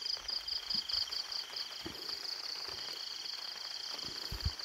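Insects chirping in an even pulse of about four to five chirps a second, with a second, lower steady trill underneath that drops out briefly and returns. A few soft low thumps sound, the clearest near the end.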